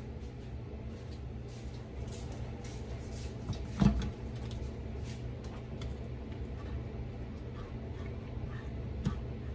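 Minced garlic sizzling in olive oil in a pan, with faint scattered crackles over a steady low hum. A single knock sounds about four seconds in.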